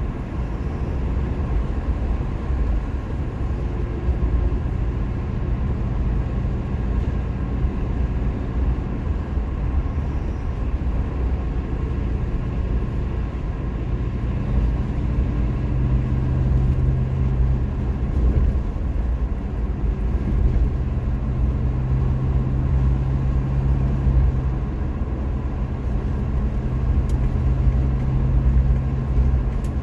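Engine drone and tyre/road noise heard from inside the cabin of a classic car cruising along an open road. The engine note shifts slightly a few times past the middle as the speed changes.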